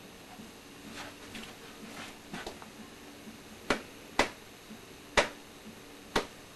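Objects being handled and set down: a few faint clicks, then four sharp, loud knocks about a second apart in the second half.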